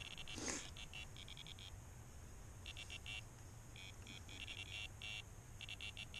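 Electronic bite alarms on a carp rod pod beeping in short runs of rapid high beeps with gaps between, set off as the rods and lines on them are handled. A brief rustle of handling about half a second in.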